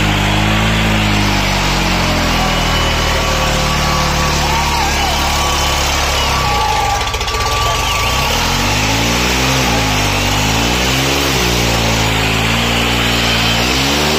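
New Holland 3630 tractor's three-cylinder diesel engine labouring under heavy load as it hauls a loaded trolley, pouring black smoke; its speed holds steady at first, then rises and falls several times in the second half. Crowd voices and shouts mix in.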